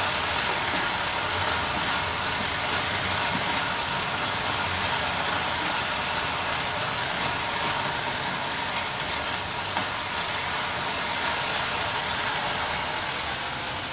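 Blended chili paste sizzling as it fries in oil in a pan on a gas burner while being stirred: a steady hiss that falls away right at the end.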